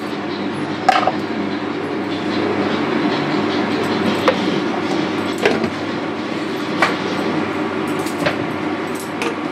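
Steady low rumbling hum, with several light clicks and knocks scattered through it, as cooking oil is poured into a hot, empty aluminium kadai.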